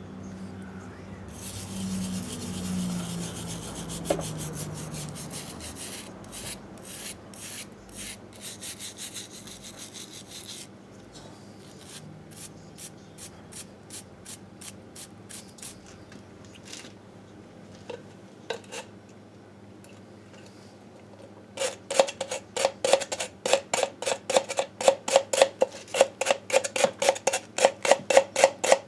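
Hand scrubbing of years of grime off a 1958 Harley-Davidson Sportster's aluminium crankcase. Scattered rubbing strokes come first, then a quieter spell, then fast, even back-and-forth strokes at about four a second near the end.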